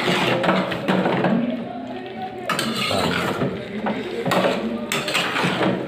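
Metal spoon clanking and scraping against a cooking pot as chicken is stirred in its chilli-paste masala.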